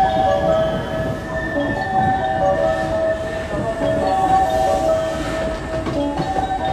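A 223 series electric train pulls out of the platform, its running noise under a repeating electronic melody of short stepped notes.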